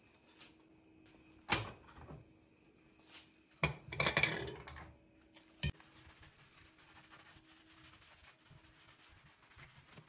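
Metal pan supports of a gas hob clattering as they are lifted off and set down on the worktop: one loud clank about a second and a half in, a longer clatter around four seconds, and a sharp click shortly after. Then a sponge rubs quietly over the glass hob.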